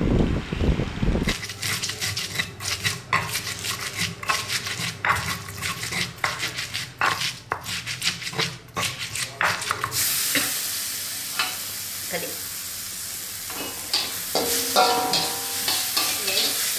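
Stone pestle pounding and grinding a spice paste of shallots, garlic and red chilli in a flat stone mortar, a run of sharp knocks, after a second of low rumbling noise. About ten seconds in it changes to oil sizzling in an aluminium wok with a metal spatula stirring, scraping and clinking against the pan.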